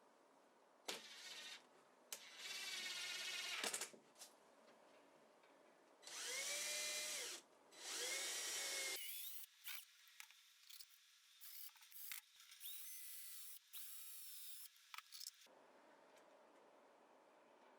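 Power drill running in a series of short bursts, each a second or two long, its motor whine rising as it spins up.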